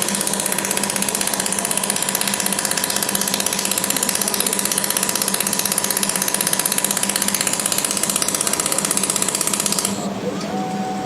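Pulsed laser welding machine firing at high power, a loud rapid even pulsing crackle that stops abruptly near the end.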